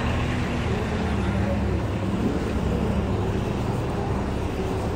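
City street ambience: a steady rumble of road traffic.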